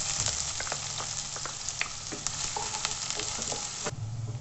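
Chopped onions sizzling in hot oil in a non-stick kadhai as they are stirred with a spatula, with scattered scraping taps. Near the end the sizzle drops suddenly to a softer one over a steady low hum.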